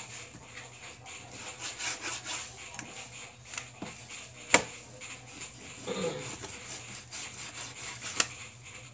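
Kitchen knife sawing through raw pork on a cutting board: repeated scraping strokes, with a sharp knock of the blade on the board about four and a half seconds in and another near the end.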